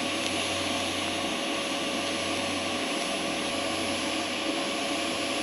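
Lift-start TIG welding arc from a Simder SD5010 Pro set to about 105 amps, burning steadily as a bead is run with filler rod: an even hiss with a steady tone and a faint high whine.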